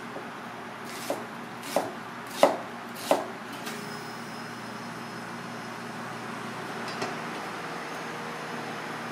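Chef's knife slicing an onion on a plastic cutting board: four chops about two-thirds of a second apart, the third the loudest, then the cutting stops and only a steady background hiss remains.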